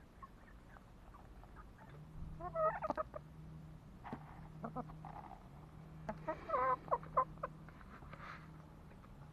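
Chickens clucking in two short bouts of wavering calls, about two and a half and six and a half seconds in, with scattered light clicks between them.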